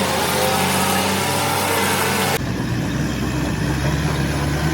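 Rebuilt six-cylinder diesel engine of a Hitachi excavator running steadily at idle. About halfway through the sound changes abruptly: the hiss drops away and the low rumble grows stronger.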